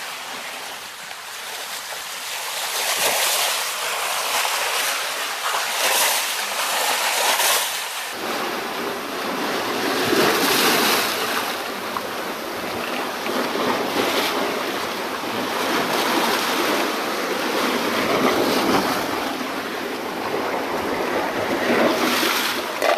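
Small sea waves washing in over shoreline boulders and draining back between the rocks, swelling in repeated surges every two to three seconds.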